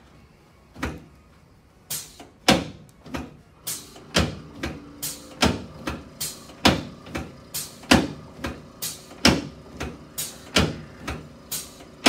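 A rapid run of sharp knocks or clicks, about two to three a second and uneven in loudness, starting about two seconds in after a single knock and a quiet opening.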